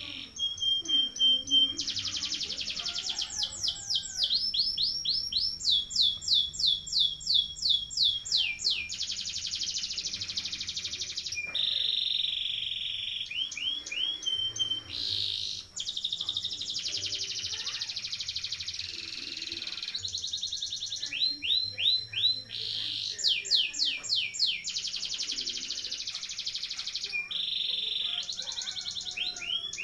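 Domestic canary singing a long, unbroken rolling (ngerol) song: fast trills of repeated notes, some passages of quick downward-sweeping notes at about five a second, one phrase running straight into the next.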